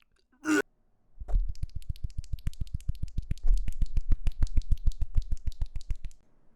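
Rapid typing on a mechanical keyboard, about seven keystrokes a second, each a sharp click with a deep low thud, stopping about a second before the end. A brief noise comes just before it, about half a second in.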